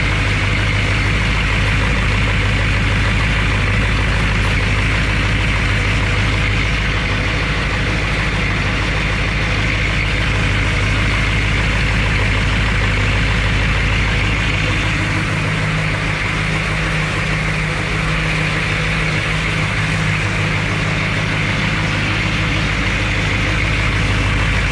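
HMMWV M998A1's 6.2-litre V8 diesel engine idling steadily, heard up close from the open engine bay.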